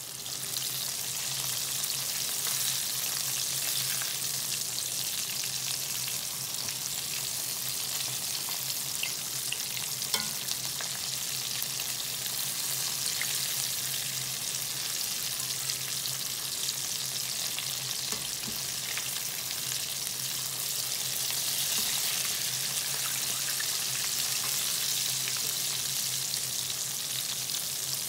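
Breaded chicken tenders deep-frying in hot oil: a steady, dense sizzle and crackle of bubbling oil, with a faint low hum underneath and a single sharp click about ten seconds in.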